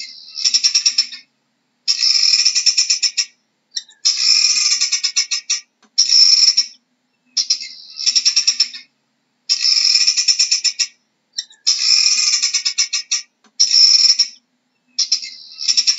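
Helmeted guinea fowl calling with loud, rapid rattling cackles, repeated in about nine bursts of a second or so each with short breaks between them.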